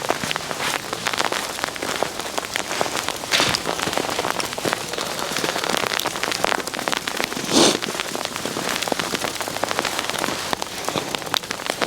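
Rain or mixed wet precipitation pattering steadily on surfaces close by: a dense, even crackle of many small drops. A brief louder sound stands out about seven and a half seconds in.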